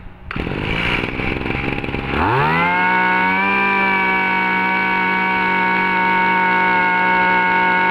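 Stihl FS26 brush cutter's 26cc two-stroke engine starting up, running roughly at idle for about two seconds, then revved up and held at a steady high speed.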